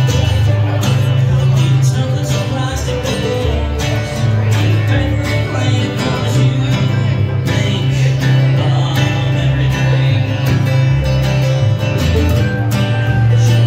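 Live acoustic string band playing bluegrass-style music: strummed acoustic guitar, plucked upright bass carrying a strong low line, and mandolin.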